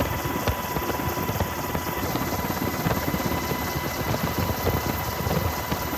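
Steady rotor and engine noise of an aircraft in flight, heard from on board, with a fast low pulsing and a thin steady high tone running through it.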